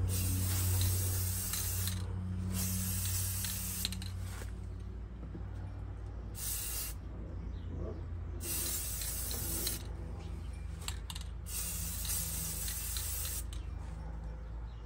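Aerosol spray can of primer hissing in about five separate sprays of one to two seconds each, with short pauses between them.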